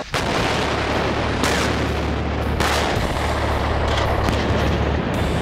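A garbage truck packed with ANFO explodes: a sudden blast, then a dense, continuous roar over a steady deep rumble. Further sharp cracks come about one and a half, two and a half, three and five seconds in.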